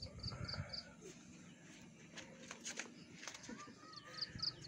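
A small bird repeating a short high note, about four times a second, near the start and again near the end. A few light clicks come in between, over quiet outdoor background.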